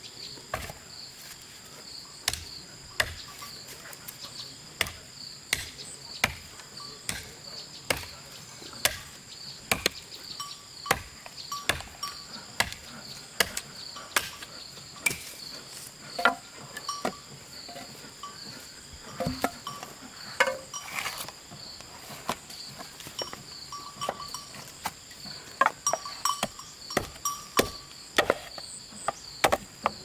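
Sharp knocks of a hand tool striking again and again, irregular at about one or two a second and coming faster near the end, over insects trilling steadily in the background.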